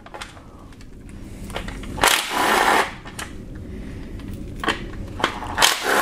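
Cordless power tool with a socket running in two short bursts, about two seconds in and again near the end, spinning out the bolts of an automatic transmission's oil pan.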